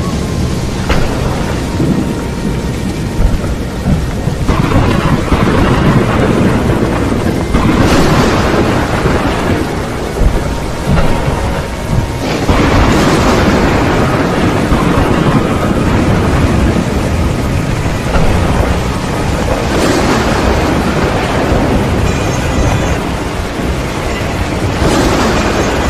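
Thunderstorm: steady heavy rain with several rolls of thunder swelling up over it, about five in all.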